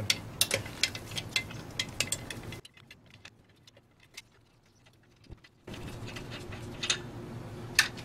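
Lug wrench turning a car wheel's lug nuts loose: a quick run of light metal clicks, then about three seconds of near silence, then a couple of single clicks near the end.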